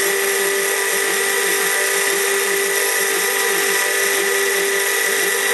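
CNC milling machine spindle whining steadily as a small end mill cuts the copper off a copper-clad PCB. Beneath the whine, a lower tone rises and falls about twice a second.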